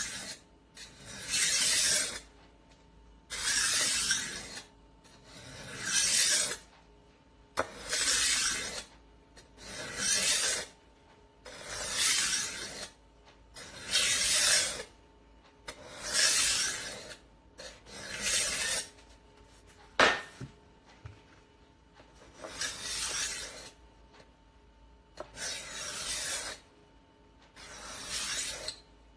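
Rolling knife sharpener's disc being rolled back and forth along a kitchen knife blade, a gritty rasping stroke about every two seconds, with one sharp click about twenty seconds in.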